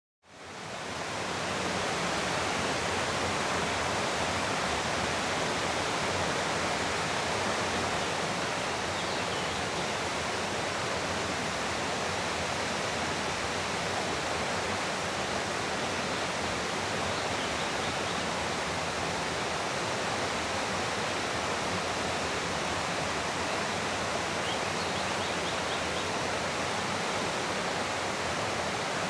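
Morricana waterfall: water falling and splashing in a steady, unbroken rush, fading in over the first second or so.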